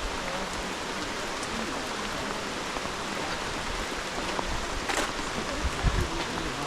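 Steady rain falling, an even hiss with a few sharper drop taps and a low thump near the end.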